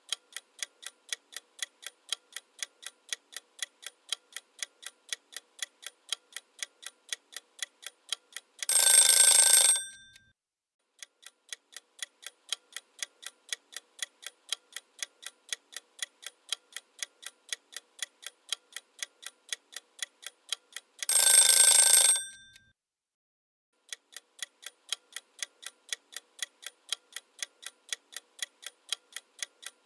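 Ticking-clock countdown sound effect, two to three ticks a second, for a quiz timer. It breaks off twice for an alarm-clock bell ringing for about a second and a half, a little under 9 s in and again about 21 s in, signalling that time is up.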